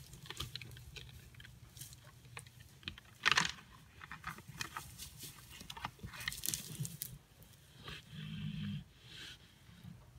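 Mule deer bucks fighting, their antlers clacking and grinding together amid rustling dry grass, with one loud sharp clash about three seconds in.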